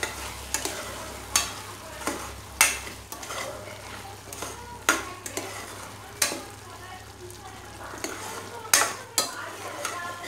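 Metal spoon stirring thick cooked tomato chutney in a metal saucepan, scraping and clinking against the sides and bottom of the pan at irregular intervals.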